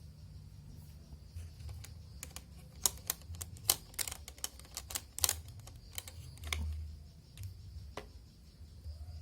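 Irregular sharp clicks and taps of hard plastic from a car AC vent's louvers being handled, bunched in a quick flurry through the middle and thinning out near the end, over a faint steady high whine and a low hum.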